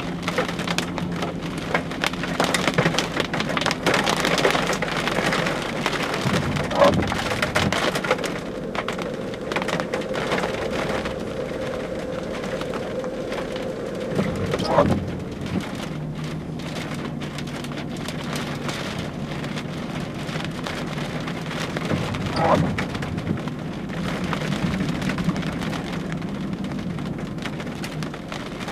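Rain falling during a severe thunderstorm, many drops pattering close to the microphone, heaviest in the first several seconds, with a few louder knocks about 7, 15 and 22 seconds in.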